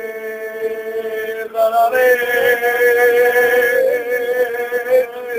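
Music with a man singing long, held notes; a new, higher note begins about two seconds in.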